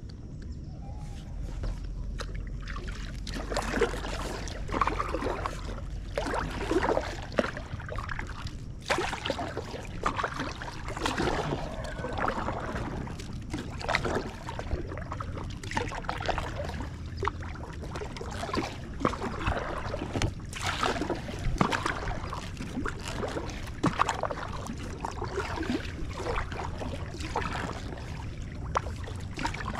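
Paddle strokes splashing in the water beside an inflatable packraft, irregular, about one every second or two, with water trickling and sloshing between them.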